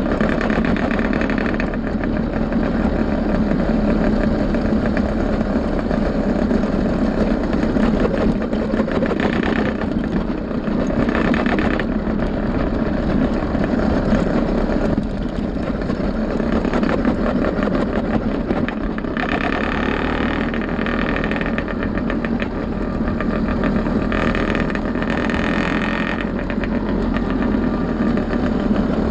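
Two-stroke AM6-type motorized-bike engine, fitted with a CNC cylinder and 49 mm piston, running steadily under way, its level swelling and easing slightly every few seconds.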